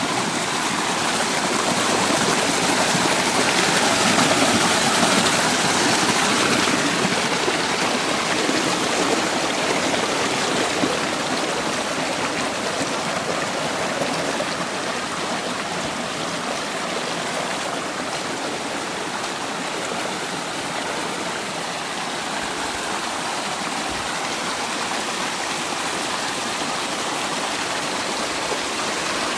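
Mountain stream cascading down a narrow channel between granite boulders: a steady rush of water, loudest a few seconds in and a little softer later.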